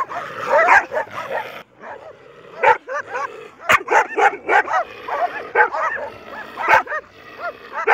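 A pack of stray dogs barking and yelping, many barks overlapping, as they circle a man who has come near the sheep they guard.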